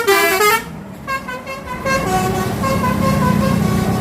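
Bus 'basuri' telolet horn playing a stepped, flute-like melody, loud for the first half second, then breaking off, with quieter notes carrying on over the steady hum of the bus.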